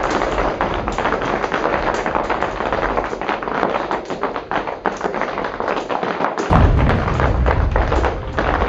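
Hail pelting the canvas roof and walls of a yurt: a dense, loud patter of countless small hits. A deeper rumble joins in about two-thirds of the way through.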